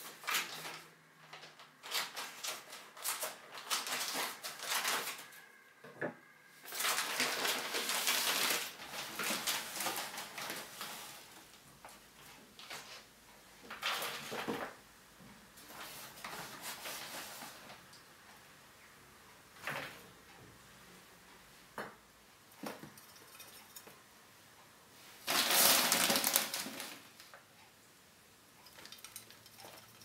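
Handling a plastic bag of potting soil and a plastic planter box: crinkling and rustling of the bag, light knocks of plastic, and soil being poured into the planter, in irregular noisy bursts with short pauses.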